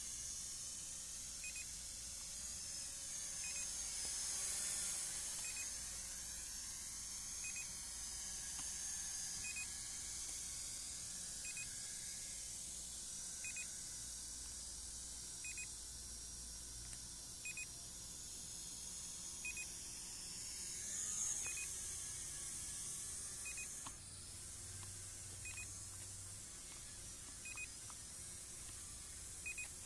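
Steady electronic hiss with a faint short double beep repeating about every two seconds, from a small camera drone as it takes off and climbs.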